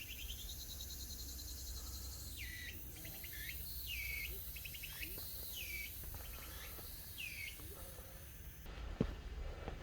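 An insect's pulsing trill fades out in the first second or so. A bird then gives a short falling call five times, about once a second. A low rumble runs underneath, and a single sharp knock comes near the end.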